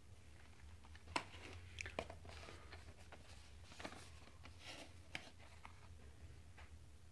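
Small cardboard retail boxes of computer parts being handled: faint scattered taps, scrapes and crinkles as they are turned over and picked up, the sharpest tap about a second in.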